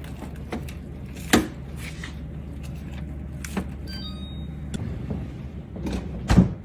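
Freeze-dryer trays of chili knocking and sliding as they are loaded into a freezer, a few separate knocks over a steady low hum, with the loudest thump near the end.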